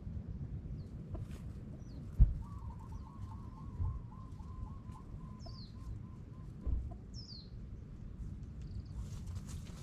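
Birds calling: short high chirps that drop in pitch, and about two seconds in a run of quick, wavering notes at one pitch that fades out after a few seconds. A steady low rumble lies underneath, with a few thumps, the loudest about two seconds in.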